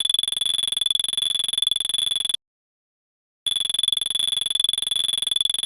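Synthetic stun-gun or laser sound effect: a steady, high electronic buzzing tone that plays for about two and a half seconds, cuts off dead, then plays again the same way about a second later.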